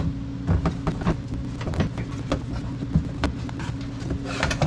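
Interior panel of a Can-Am Defender being worked free and lifted out, giving a string of short knocks and clacks over a steady low hum.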